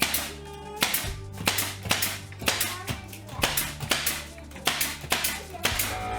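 Background music with a steady percussive beat, about two strikes a second, over a low bass line.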